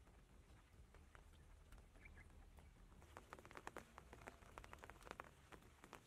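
Near silence: a faint low hum, with a scatter of faint, irregular ticks and patters from about halfway through.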